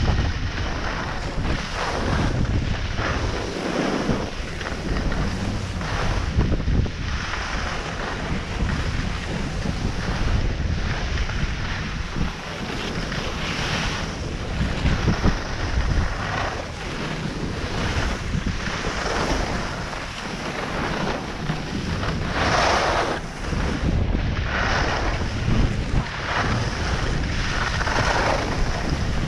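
Wind rumbling on the microphone of a skier moving down a groomed slope, with the hiss and scrape of skis on packed snow rising and falling in bursts; the loudest scrape comes about three-quarters of the way through.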